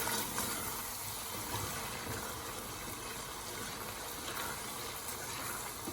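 An onion, spice and yogurt masala sizzling and bubbling in a pan as it is stirred, a steady hiss.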